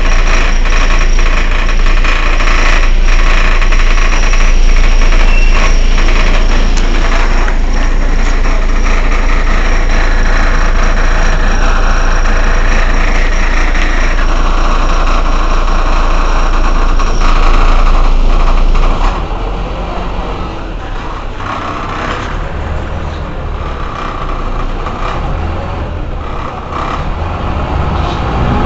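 Mercedes-Benz O 405 N city bus's rear engine idling at a standstill, a steady low drone. The running becomes clearly quieter about two-thirds of the way through.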